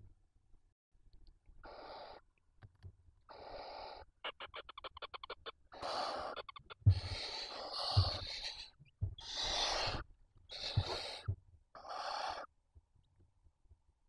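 Barn owls in the nest giving rasping hiss calls, about seven in a row, each up to a couple of seconds long. A quick run of clicks sounds around four seconds in, and a few low thumps come from the birds moving on the nest floor.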